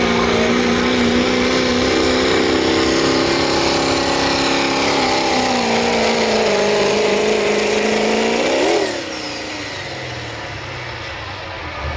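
Diesel Chevrolet Silverado pickup's engine at full throttle pulling a weight-transfer sled, its note steady at first and then slowly pulling down under the growing load. About nine seconds in the throttle is released: the note swoops up briefly and drops away sharply to a much quieter running, with a high whistle falling away.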